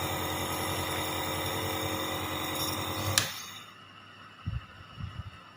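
Dr Trust compressor nebulizer's piston compressor running with a steady, fast-pulsing hum, then switched off with a click about three seconds in and running down within half a second, once no mist is coming. A couple of soft knocks follow.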